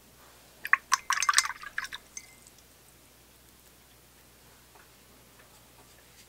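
Watercolour brush rinsed in a glass water jar: about a second of quick clinks of the brush against the glass with water splashing, then a short ring from the glass.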